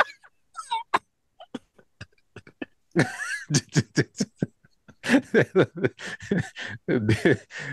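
A man laughing and coughing in short, rapid repeated bursts, starting about three seconds in after a few faint clicks.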